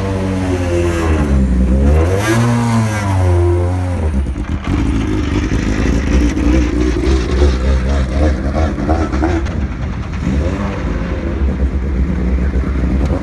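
Formula 3 single-seater racing car engines blipped, pitch rising and falling over the first few seconds, then running at low revs as the cars roll out at walking pace.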